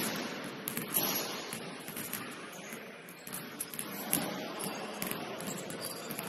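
Basketball game in a gym: a steady, noisy hall background with scattered sharp knocks of the ball bouncing on the court.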